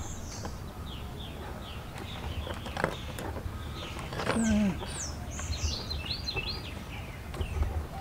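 Background birds chirping, many short high falling calls, over a steady low rumble. A single click about three seconds in, and a brief, louder low falling sound a little after four seconds.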